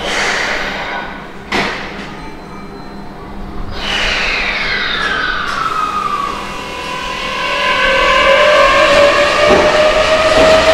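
Keihan electric train in the underground station, echoing off the walls: two clunks early, then the motor whine slides down in pitch in several tones. About halfway through, a single rising whine takes over and grows louder toward the end.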